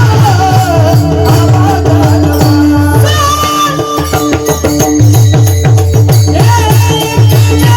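Marathi devotional bhajan: a voice singing over steady held drone notes, a drum beating a fast rhythm and jingling hand percussion. About three seconds in the drum drops out, leaving the drone and rattling percussion, and it comes back about two seconds later.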